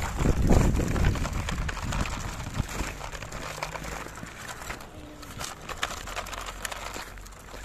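Crunching and crackling of icy snow as a plastic toy dump truck is dragged along it on a string, with scattered sharp clicks. For the first second or so a low rumble of wind on the microphone covers it.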